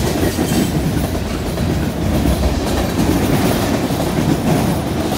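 Freight cars of a passing train rolling by close at hand: a steady, loud noise of steel wheels running on the rails.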